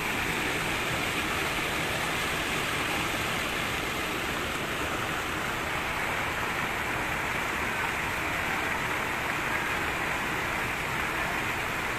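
Muddy flash-flood water running across a street, a steady rushing noise.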